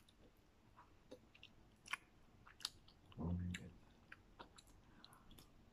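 Faint eating sounds: a metal spoon clicking against a plate twice and soft chewing, with a brief closed-mouth 'mm' hum about three seconds in.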